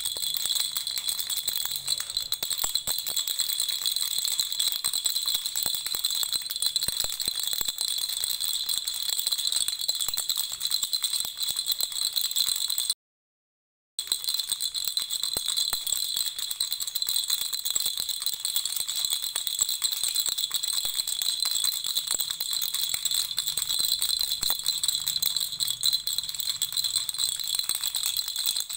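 Baby rattle shaken fast and continuously, a dense rattling with a steady high ringing note over it. The sound cuts out completely for about a second midway, then resumes.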